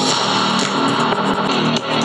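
Background music led by guitar with a strummed, plucked sound.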